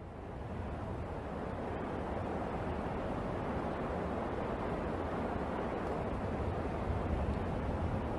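Steady rushing noise with no distinct bangs or tones.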